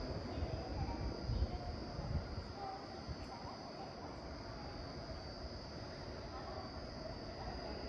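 Quiet station ambience: a steady high-pitched trill over a low background rumble, with a few low thumps in the first couple of seconds.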